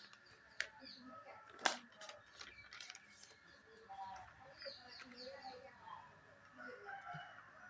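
Sharp clicks and taps from highlighter pens and their packaging being handled, the loudest about a second and a half in. Birds chirp faintly in the background.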